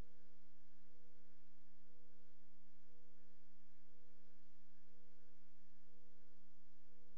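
Steady electronic hum made of a few low tones, with a short higher beep repeating about once a second.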